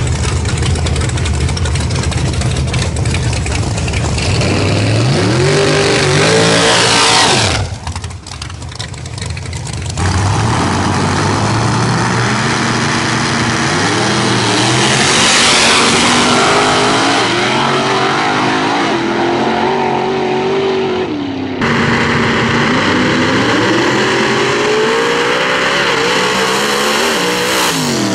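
Drag-racing cars at full throttle, one of them a nitrous big-block Chevy V8 Monte Carlo. The engine note climbs in pitch, drops at each gear change and climbs again, over several runs in a row. The sound dips briefly about eight seconds in.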